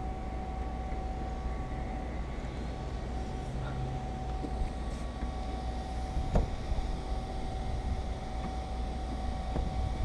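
Steady low rumble with a thin steady whine over it, and a single sharp click a little past six seconds in.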